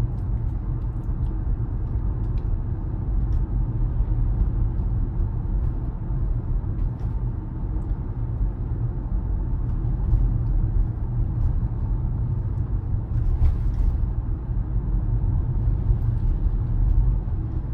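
Steady low road and tyre rumble inside the cabin of a Tesla Model Y driving along. The car is electric, so no engine is heard.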